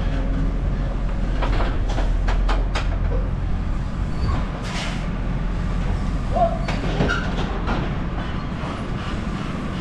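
Farm tractor running at a steady pace with a low engine drone, overlaid by frequent short metallic clanks and rattles.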